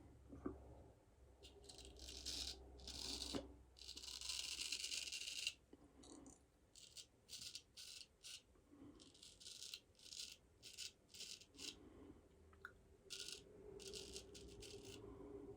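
Faint, scratchy strokes of a razor blade cutting through lathered stubble: one longer scrape early on, then many short, irregular strokes about one or two a second.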